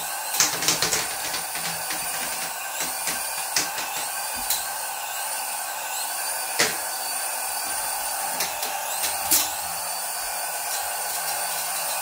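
Small toy RC helicopter hovering: the steady whine of its electric rotor motor, with a few sharp ticks now and then.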